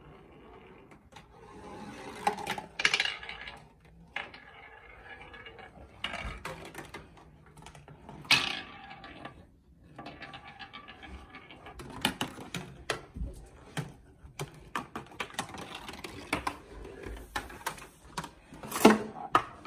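A marble rolling down the cardboard tubes and paper chutes of a homemade marble run: a soft rolling rumble broken by many clicks and knocks as it drops and hits the turns, the loudest knock near the end.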